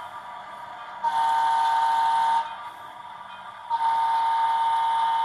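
Sound-equipped HO scale model steam locomotive blowing its whistle through the model's speaker: several tones sounding together, in a blast of about a second and a half, then a second, longer blast beginning a little over halfway through.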